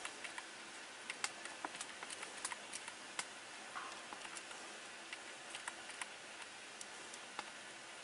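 Computer keyboard keys clicking faintly in uneven runs as terminal commands are typed, over a steady low hiss.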